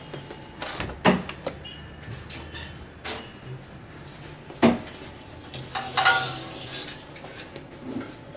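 Knocks and clatters of electric barbecue grill parts, the wire grill racks and plastic drip tray, being handled on a wooden table: a handful of sharp hits, loudest about a second in and midway through, over a faint steady hum.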